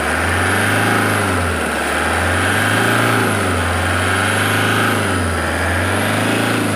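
Toyota HiAce's 2KD four-cylinder common-rail diesel running with the bonnet open, its speed rising and falling in a slow, even cycle about every second and a half.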